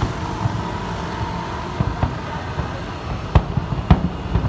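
Aerial fireworks booming in the distance: a few sharp bangs, the loudest two about three and a half and four seconds in, over a steady low rumble of street traffic.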